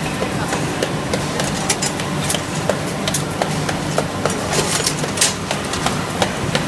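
Irregular light metal clicks and taps as plate-and-fin radiator core parts, flat plates and corrugated fin strips, are laid and pressed by hand into the stacking channel of a core assembling machine, over a steady factory hum. The sharpest tap comes a little past the middle.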